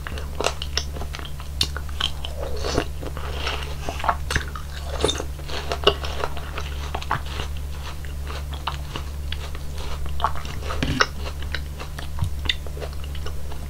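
Close-miked chewing and biting of juicy fruit: crisp watermelon chunks and other fruit from a fruit punch, with wet crunches, clicks and mouth smacks coming irregularly, over a steady low hum.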